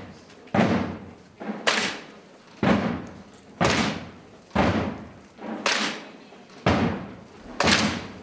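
Slow, steady marching beat of a Passion procession's Roman soldiers: one sharp strike about every second, each echoing briefly before the next.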